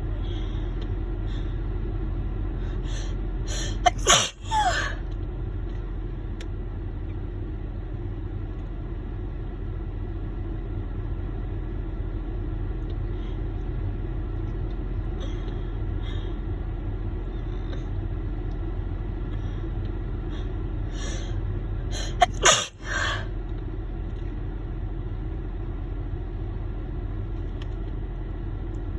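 A woman sneezing twice, about eighteen seconds apart, each sneeze preceded by a few short catching breaths as the tickle builds. A steady low car hum runs underneath.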